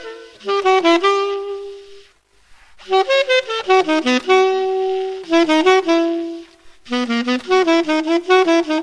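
Solo C-melody saxophone, a silver-plated 1923 Buescher True Tone with a metal Otto Link mouthpiece, playing a choro melody. Quick runs of short notes alternate with a few held notes, with a brief break a little over two seconds in and another about seven seconds in.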